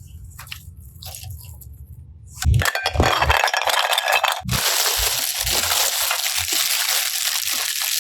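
Slime being squished and worked by hand, giving dense wet crackling and popping that starts suddenly about two and a half seconds in, after a few faint clicks over a low hum.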